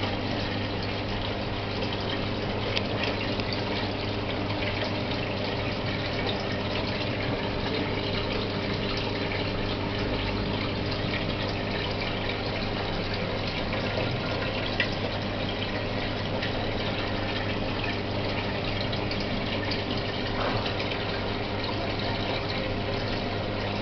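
Aquarium filter pump running steadily, with water splashing and trickling over a low motor hum.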